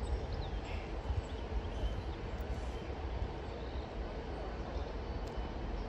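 Railway platform ambience: a steady low rumble with a few faint, short, high chirps, and no single loud event.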